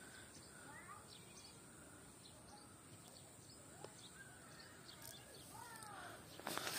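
Faint outdoor quiet with scattered short bird chirps over a steady high hiss, and a few quick clicks and rustles near the end.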